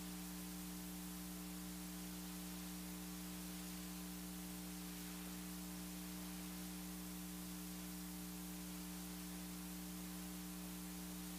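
Steady electrical mains hum with a faint hiss, and no other sound.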